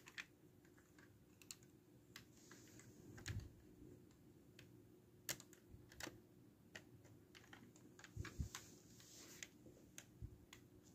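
Irregular small clicks and taps of plastic LEGO parts being handled, with a few louder knocks and some soft rustling, over near-silent room tone.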